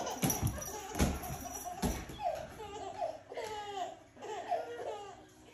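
A few sharp knocks in the first two seconds, then a baby laughing in short repeated bursts.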